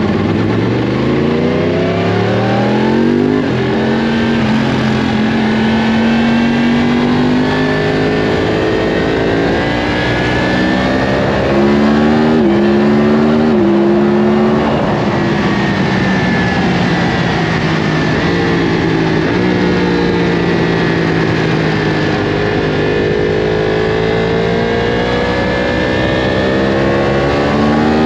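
Yamaha R1 superbike's inline-four engine pulling hard out of the pit lane, its revs climbing over the first few seconds with drops in pitch at each upshift, then rising and falling through the corners of a steady warm-up lap. Heard onboard, with a constant rush of wind.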